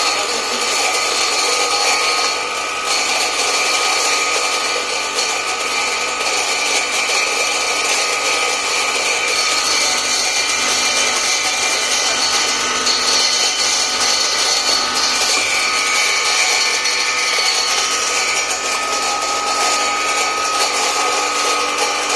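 Grain grinding mill running steadily as it grinds corn into meal, a continuous mechanical noise with a steady high whine.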